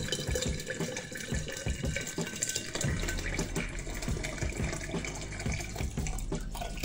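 Hot water pouring in a steady stream from a metal jug into a tall glass, filling it to about halfway.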